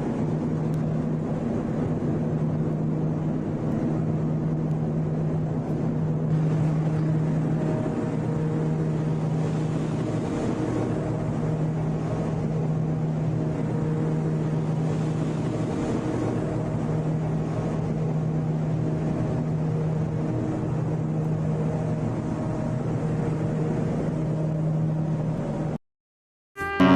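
Ship's engine running steadily: a constant low hum over a noisy rumble, cutting off briefly shortly before the end.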